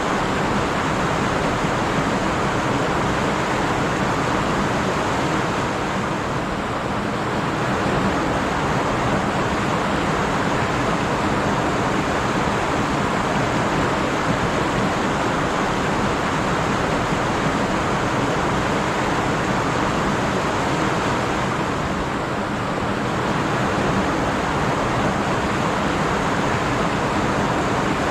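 Stream water rushing and splashing over rocks, a steady dense rush that eases off slightly twice.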